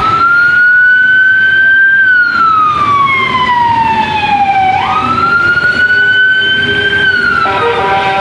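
Emergency vehicle siren wailing, its pitch sweeping slowly up and then down about every five seconds. Near the end it gives way to steadier held tones.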